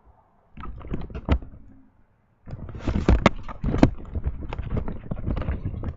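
Clattering handling noise: a short run of clicks and knocks about half a second in, then, after a brief pause, a dense stretch of clicks, knocks and scrapes from about two and a half seconds on.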